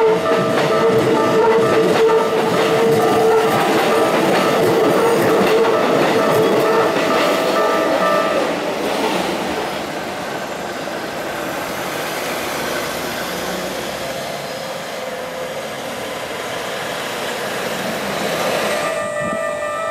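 Keikyu electric train passing slowly over a level crossing, its wheels clattering and rumbling, while the crossing's warning alarm rings. The alarm stops about eight seconds in as the train noise eases, and starts ringing again just before the end.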